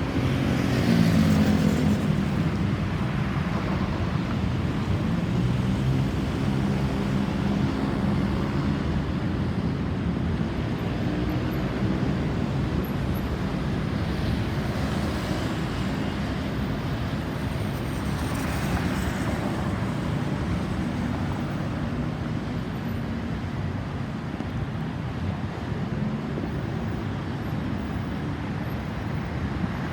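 Road traffic noise with a vehicle engine running close by, loudest in the first couple of seconds and then steady.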